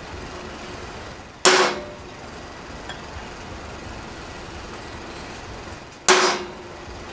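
Hammer striking a centre punch into steel plate twice, about four and a half seconds apart, each blow a sharp strike with a brief metallic ring, marking hole positions.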